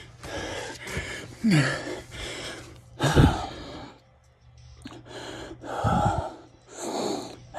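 A man breathing hard and gasping, a breath about every second with a brief pause midway. Two of the breaths come out as short falling groans. He is out of breath from the end of a long, hard burpee workout.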